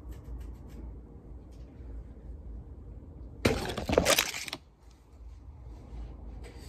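Phone being handled and repositioned while recording: about a second of loud, crackly rustling and scraping on its microphone midway, over a low steady background hum.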